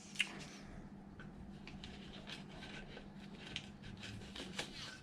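Light clicks and rubbing of plastic parts being handled as the side piece of an RC truck chassis is fitted, over a low steady hum.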